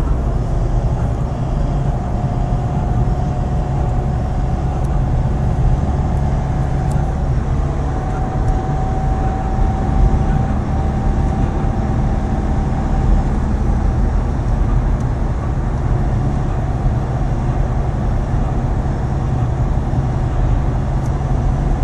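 Citroën C4 engine running steadily at about 2000 rpm with a thin, high squeal over it. The squeal creeps slightly up in pitch, fades out for a while past the middle and comes back near the end.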